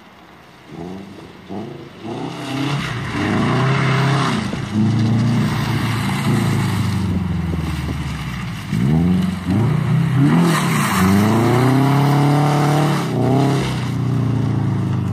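Subaru BRZ's flat-four engine, breathing through a 3-inch single-exit aftermarket catback exhaust, being revved and accelerated hard. The exhaust note climbs and falls in pitch several times as the car drives around and past. It is quieter at first and loud from about two seconds in.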